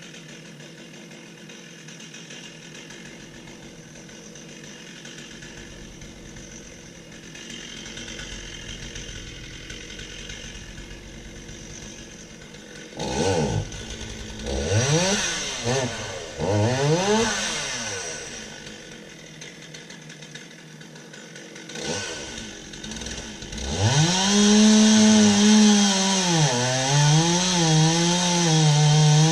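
Chainsaw idling, then revved in several short bursts about halfway through. Near the end it runs at full throttle, its pitch sagging and recovering as the chain cuts into the larch wood.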